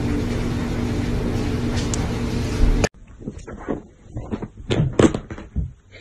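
A steady hum with hiss that cuts off abruptly about three seconds in. Then comes a run of short, irregular scuffling knocks and bumps as two dogs wrestle on a couch, loudest about five seconds in.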